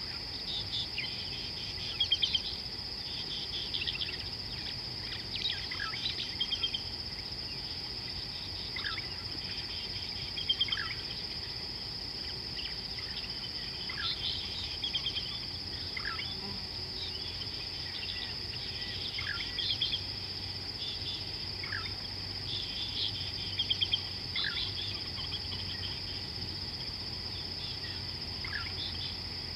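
Steady high-pitched insect drone, like crickets, with bird calls over it: short chirpy trills and a quick falling whistle repeated every couple of seconds.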